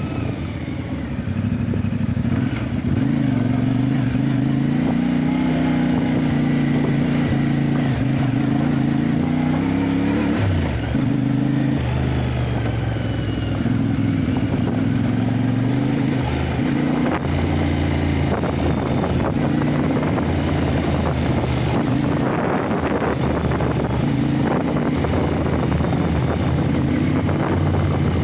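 Adventure motorcycle engine running under way, its pitch rising and falling with the throttle. It climbs steadily for a couple of seconds, then drops sharply about ten seconds in, and rises and falls again after that.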